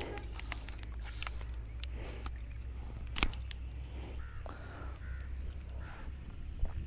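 A few short bird calls, mostly between four and six seconds in, over a steady low rumble, with a sharp click just after three seconds.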